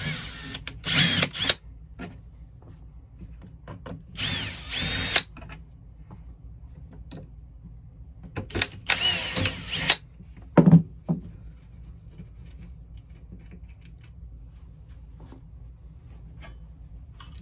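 DeWalt cordless drill/driver turning screws in a paper cutter's base. It runs in three short bursts of about a second each, its whine rising as the motor speeds up, and then comes a single knock.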